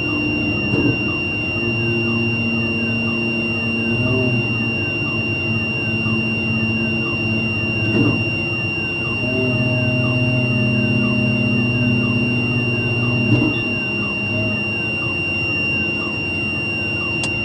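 Mobile crane's diesel engine running steadily during a lift, its pitch shifting about halfway through, under a continuous high-pitched whine.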